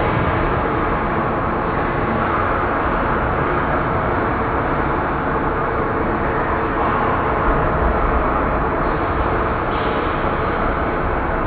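Rain recording reworked into a horror soundscape: a dense, steady, rumbling wash of rain noise with the highs cut away.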